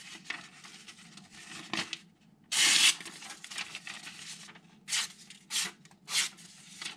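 Freshly sharpened carbon steel knife slicing through newspaper: one longer, loudest cut about two and a half seconds in, then three short cuts about half a second apart near the end, with paper rustling between. The edge goes through cleanly.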